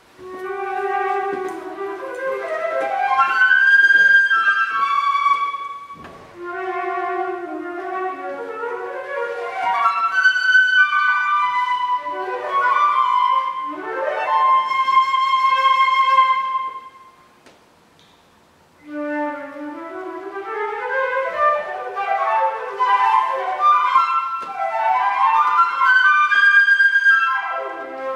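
Concert flute playing a fast classical passage of quick rising runs and held notes, with grand piano accompaniment. The music breaks off for about a second and a half about two-thirds of the way through, then resumes with rapid rising runs.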